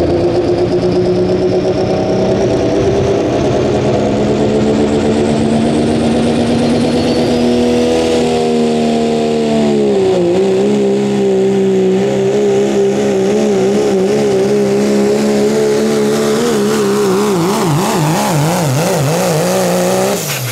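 Dodge Ram pickup's Cummins straight-six diesel at full throttle pulling a weight-transfer sled, loud and steady, with a high whine rising over the first several seconds. About ten seconds in the engine note drops and then holds, wavering, before it stops abruptly near the end.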